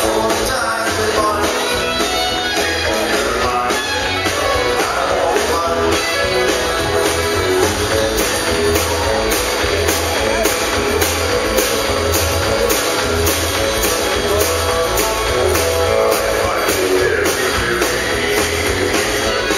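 Live country-western band playing: electric and acoustic guitars, fiddle, bass and drums, with a steady drum beat.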